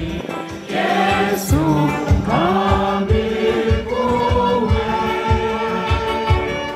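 A choir of women singing a hymn in parts, with long held notes over a steady low beat of about two strokes a second.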